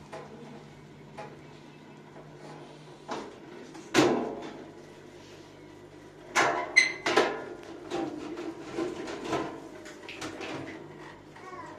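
A steady low hum that stops about six seconds in, a single loud knock about four seconds in, and then a run of clicks, knocks and scrapes, like hard parts or a cover being handled.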